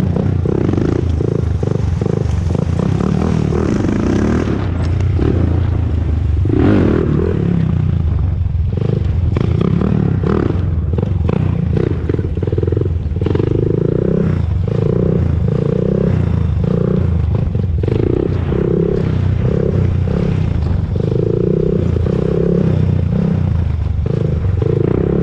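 Honda TRX400EX ATV's single-cylinder four-stroke engine running while the quad is ridden, its note swelling and easing off again and again, with clattering and short clicks over it.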